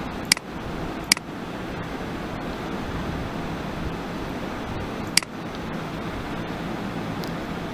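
Steady background hiss and hum with a few sharp computer mouse clicks: one just after the start, one about a second in, one a little past five seconds, and a fainter one near the end.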